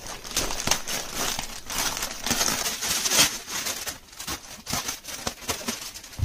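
Plastic packaging crinkling and rustling in irregular crackles as it is handled and opened.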